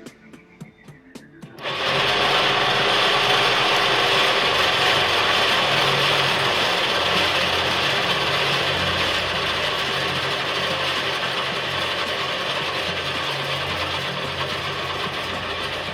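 Circular vibrating sieve (vibro screen) starting up: a short quiet with a few clicks, then the machine running with a steady mechanical buzz over a low hum.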